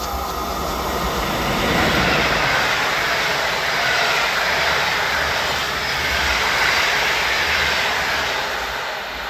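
PKP Intercity passenger train's coaches rolling past at speed, a steady rush of wheel-on-rail noise that swells about two seconds in and holds, easing slightly near the end.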